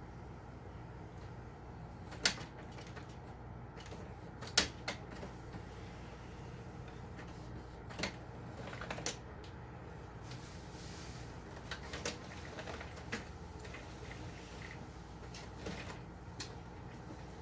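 Scattered clicks and knocks of plastic inkjet printer parts being handled and fitted, the two loudest about two seconds and four and a half seconds in, over a faint steady hum.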